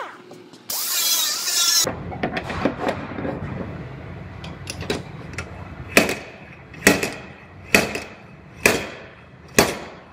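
A small grinding disc whirs briefly on sheet metal about a second in. Then a slide hammer pulls a tab welded to the quarter panel's dog leg, to draw the pushed-in metal out: light clicks, then five sharp metallic knocks about a second apart in the second half.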